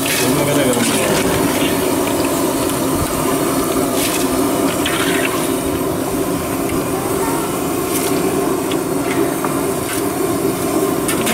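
Mysore bonda dumplings deep-frying in a large kadai of hot oil: a steady, loud bubbling sizzle, with a few brief clicks.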